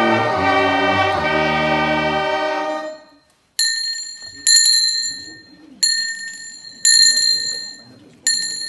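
Small brass band with clarinet holding its closing chord, which stops about three seconds in. A small high-pitched bell is then struck five times, roughly once a second, each strike ringing on and fading.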